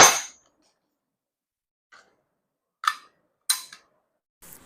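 Sharp mechanical clicks from a metal Glock 17 CO2 BB pistol: a loud click right at the start, then two smaller ones about three and three and a half seconds in.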